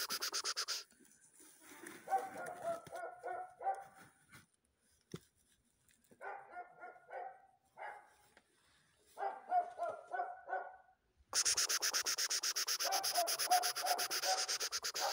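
A dog barking in quick runs of short yaps, three or four runs a few seconds apart. A loud, rapid, rhythmic hiss covers the first second and the last few seconds.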